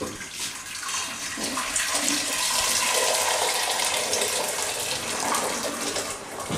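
Hot water poured into a cooking pot: a steady, splashing pour that runs for about six seconds and eases off near the end.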